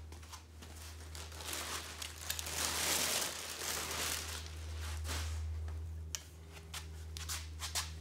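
Plastic wrapping crinkling and tearing as it is pulled off the powerhead of a gas multi-tool, loudest for a couple of seconds near the middle, with a steady low hum underneath.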